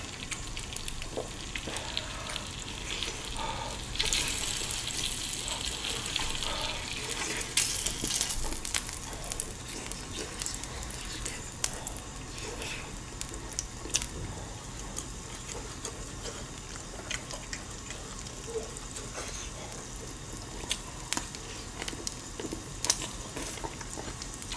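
Pork belly and whole garlic cloves sizzling on a hot ridged grill pan, a steady hiss that grows louder for a few seconds early on, with scattered sharp clicks of metal chopsticks against the pan and the food.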